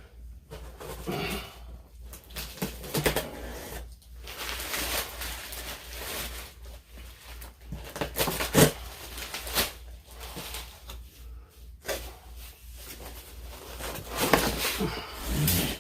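Cardboard box and foam packing being handled and pulled apart: irregular rustling and scraping, with a few sharp knocks, the loudest about halfway through. A steady low electrical hum runs underneath.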